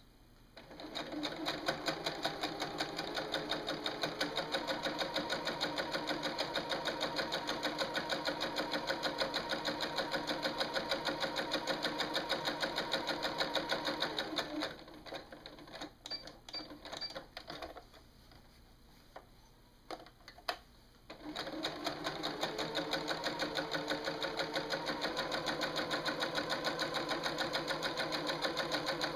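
Domestic sewing machine stitching through layered quilting cotton, its needle pulsing rapidly and speeding up as it starts. About halfway through it stops for several seconds, with a few clicks while the fabric is turned at the needle. It then runs up to speed again.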